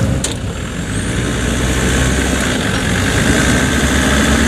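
Land Rover Discovery Td5's five-cylinder turbodiesel engine running steadily at low revs as the lifted truck crawls over rough ground, with one short click about a quarter second in.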